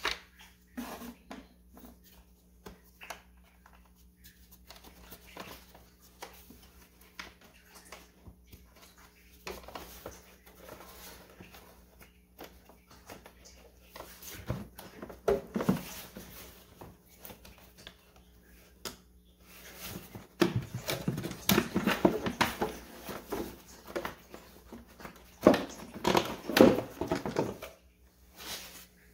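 The plastic air filter housing of a Mercedes W210 E430 being unclamped and worked loose by gloved hands: irregular clicks, scrapes and plastic rattles, sparse at first and busier in the second half.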